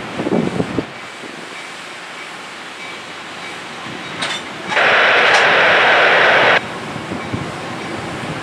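New Jersey Transit passenger train easing along the track, with wind buffeting the microphone at first. About five seconds in, a loud hiss-like burst lasts about two seconds and cuts off sharply.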